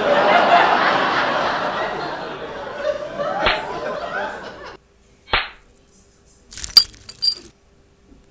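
Sound effect of breaking glass: a long crash that fades out over about five seconds, followed by a sharp knock and a few short glassy clinks.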